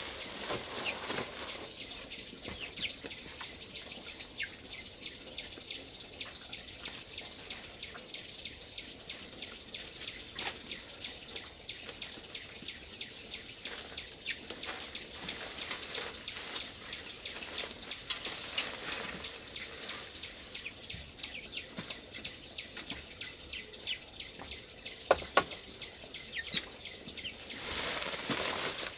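Steady high-pitched insect drone, with scattered light clicks and a few sharper ticks later on.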